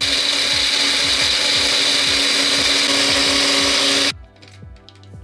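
Electric grinder running at full speed, grinding cashew nuts into a paste, with a steady motor hum; it cuts off suddenly about four seconds in.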